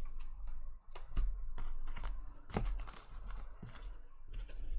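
Trading card packs and cards being handled: a run of short, crisp rustles and clicks of wrapper and card stock.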